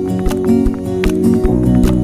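Background music with plucked acoustic guitar and a steady beat.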